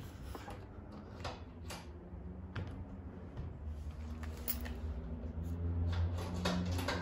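Scattered light clicks and knocks of handling against the range's metal frame, over a low steady hum.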